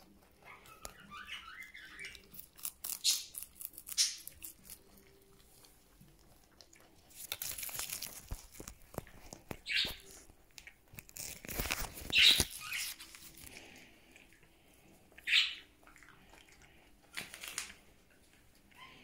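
German Giant rabbits biting and chewing crisp leafy greens: irregular short crunches and tearing, with two longer stretches of rustling.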